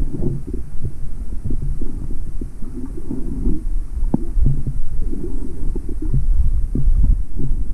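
Muffled underwater rumble with irregular low thumps as water moves against a submerged camera, and one sharper tap about four seconds in.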